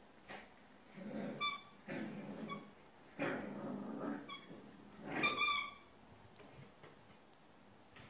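French Bulldog puppy whining in four short bouts over about five seconds: thin, high whines over a rough, lower noise, with the last bout the loudest.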